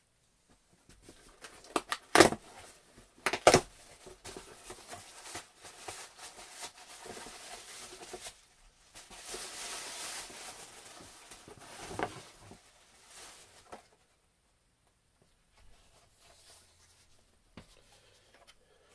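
Cardboard shipping box being opened and unpacked by hand: two sharp loud knocks a couple of seconds in, then several seconds of rustling and crinkling of plastic packaging and cardboard flaps, with one more knock about twelve seconds in.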